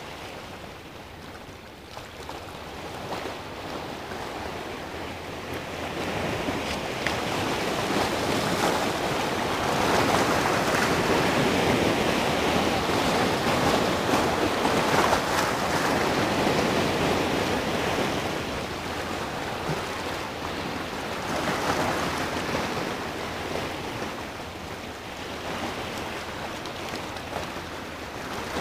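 Sea surf breaking and washing over rocks, a rushing hiss that swells to its loudest in the middle as a set of waves comes through, then eases with smaller surges near the end.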